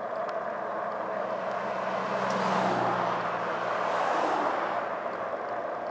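Two oncoming vehicles, the second a pickup truck, passing close by one after the other: their tyre and engine noise swells and fades about two and a half seconds in and again about four seconds in.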